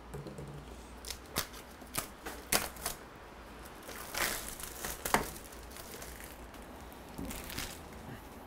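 Clear plastic shrink-wrap being torn and peeled off a cardboard product box: a run of sharp crackles and crinkles, with a longer rustle about four seconds in.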